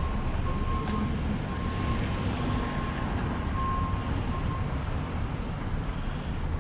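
Steady low rumble of nearby vehicle traffic, with a vehicle's reversing beeper sounding in short beeps during the first four and a half seconds.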